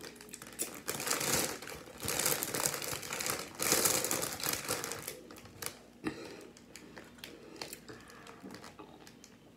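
Doritos Flamin' Hot Nacho chip bag crinkling as it is held up and handled, with chips shifting inside. It is loudest in the first half, then dies down to softer, scattered rustles.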